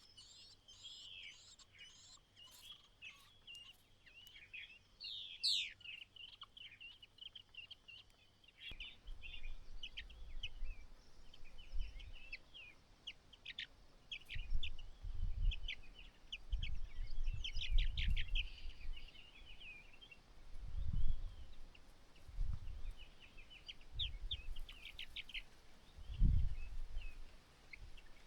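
White-browed laughingthrushes calling in many short chirps and chattering notes. From about a third of the way in, muffled low rumbles come and go several times, loudest about two-thirds of the way through.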